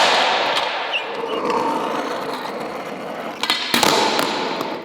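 Metal CNC-machined skateboard rolling, with sharp clacks of the board hitting down right at the start and a second cluster of clacks about three and a half seconds in.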